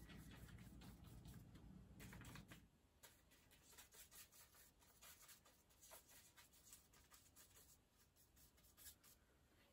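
Faint brush strokes: a paintbrush dabbing and stroking acrylic paint onto paper, a quick irregular run of soft scratches.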